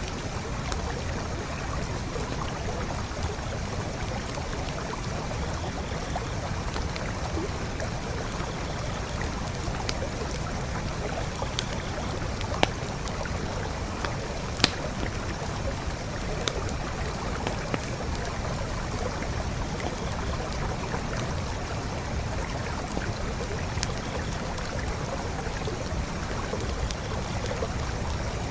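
Forest creek flowing steadily, with the campfire beside it giving occasional sharp crackles and pops, two of them louder about halfway through.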